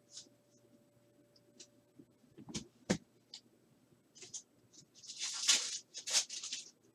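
Trading cards being flipped and handled: short papery rustles and scrapes, two sharp knocks between two and a half and three seconds in, then a longer, louder rustle around five and a half seconds.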